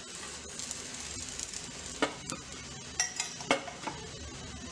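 Sweet potato chapati sizzling in oil on a hot pan, a steady hiss. Sharp taps of a utensil against the pan come about two seconds in and several more times over the next two seconds.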